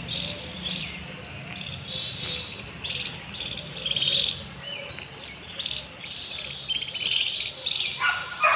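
Small birds chirping and twittering, many short calls in quick succession.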